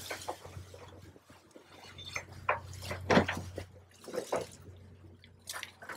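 Water splashing and streaming off a hydraulic grab crane's bucket as it dips into the canal to dredge up bicycles, over a steady low engine hum from the crane boat. A few sharp knocks and splashes stand out about three and four seconds in.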